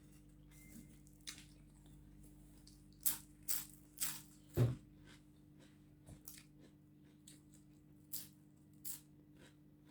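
Close-up eating sounds: a string of sharp, crackly crunches as crisp food is bitten and chewed, loudest in a cluster of four a few seconds in, then fainter ones near the end.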